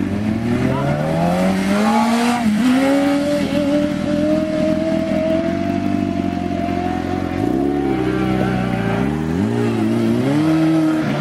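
Sport motorcycle engine under hard throttle for a wheelie, climbing steadily in pitch for the first few seconds and then holding high. Near the end come several quick throttle blips, each rising and falling.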